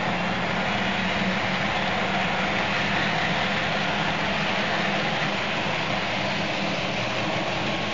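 Märklin H0 model train, a Re 460 electric locomotive hauling passenger coaches, running along the track: a steady rolling rumble of wheels on rails with the motor's hum.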